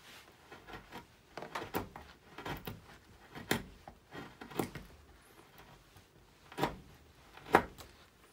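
Hand-pushed carving gouge slicing into alder wood: about seven short, crisp cuts at uneven intervals as chips break away, the loudest near the end.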